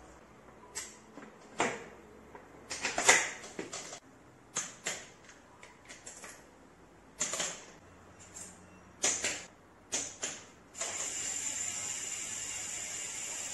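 Hand tools working on a mountain bike: scattered clicks and metal knocks at the front axle and brake caliper, then a steady high-pitched whirring hiss from about eleven seconds in.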